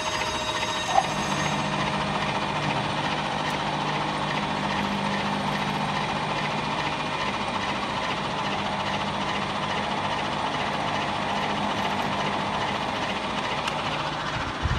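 Electric blade grinder and cutter rotor running together as the cutter's blades are ground sharp, a steady mechanical whirr and hiss. A click about a second in, after which a low steady hum joins the noise.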